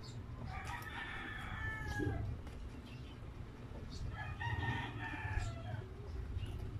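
A rooster crowing twice, each crow lasting under two seconds, heard behind close-miked chewing of pizza with short wet mouth clicks.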